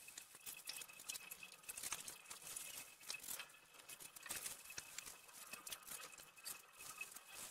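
Faint patter and splashing of water from a garden hose running onto a wet floor as it is washed down, with many irregular light clicks and drips.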